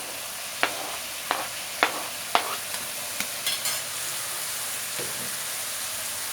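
Onions and freshly added tomatoes sizzling in hot oil in a pan, a steady frying hiss. A stirring utensil knocks sharply against the pan four times in the first two and a half seconds, then clicks more faintly.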